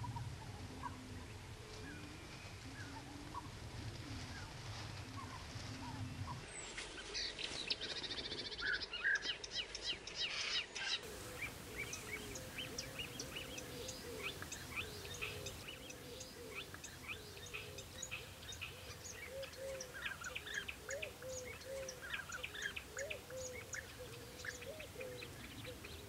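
Several birds calling, with many short high chirps over a lower, repeated note. The sound changes abruptly about six and eleven seconds in, as it cuts between separate recordings.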